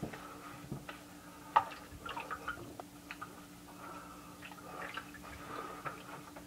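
Hands rubbing and patting a face covered in shaving lather, making soft wet squishes and scattered small clicks, over a faint steady hum.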